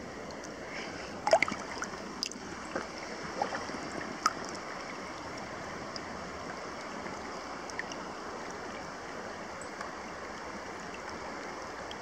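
Shallow river water rushing steadily over stones close to the microphone, with a few small splashes in the first four seconds; it cuts off suddenly at the end.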